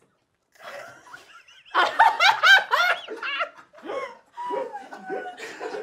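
Women laughing: after a short quiet start, loud laughter breaks out about two seconds in, in quick rising and falling bursts, then tails off.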